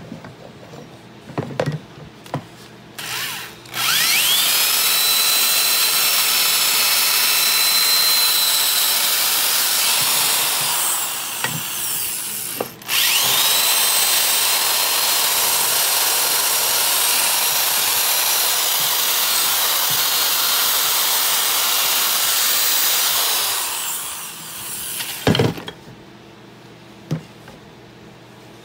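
A handheld power tool runs against a steel axe head in two long runs. Each run starts with a rising whine that settles into a steady high-pitched running sound. The tool stops briefly midway, winds down near the end, and is followed by a single knock.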